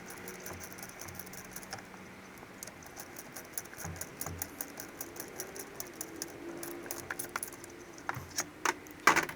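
Ratchet socket wrench clicking in a fast, even run while bolts are backed off the alternator, followed near the end by a few louder metallic clinks and a clank of tools against metal.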